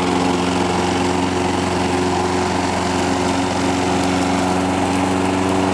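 5-horsepower Kawasaki engine of a John Deere 14SE 21-inch self-propelled lawn mower running at a steady, even speed just after a quick start.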